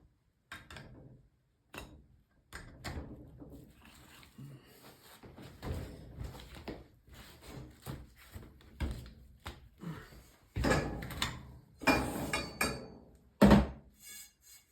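Irregular series of knocks, clunks and scraping from hand work, growing busier and louder toward the end, with one sharp knock near the end.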